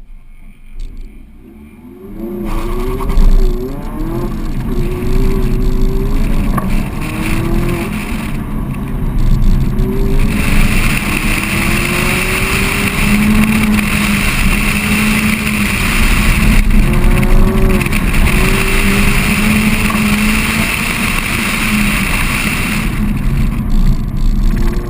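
A 2019 Mazda MX-5 Miata Club's 2.0-litre four-cylinder engine, driven hard, its revs rising and falling again and again from about two seconds in. A steady high hiss joins about ten seconds in and drops away near the end.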